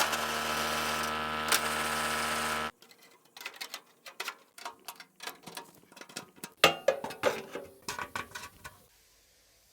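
Forage cutter running with a steady, even hum, quiet now that its noisy belt has been replaced with a used one; the hum cuts off sharply about two and a half seconds in. After that come scattered light clicks and knocks.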